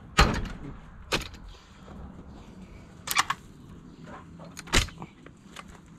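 Manual clamshell post-hole digger jabbed into the dirt, four sharp strikes spaced one to two seconds apart.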